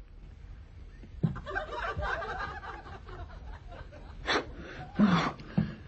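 Laughter and chuckling from a theatre audience, starting about a second in, with a couple of louder short bursts near the end.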